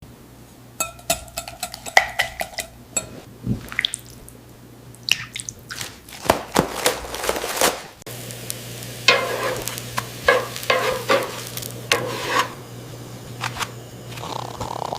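Kitchen utensils and dishes clinking and clattering in a string of quick, irregular knocks, some ringing briefly like struck metal in the first few seconds. After a sudden change about halfway through, more clatter runs over a faint steady hum.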